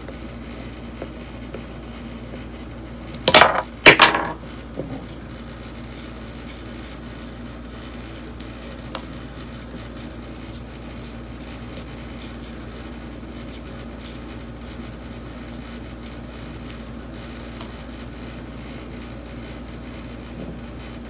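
Light metallic clicking as small bolts are worked out by hand from an exhaust cam phaser gear, with two loud ringing metal clanks a little over three and four seconds in.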